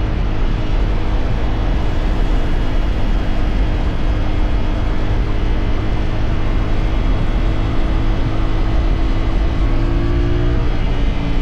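CFMoto 450SR parallel-twin engine running under way at a fairly steady speed, its note mixed with a loud, steady rush of noise. The engine note rises slightly near the end.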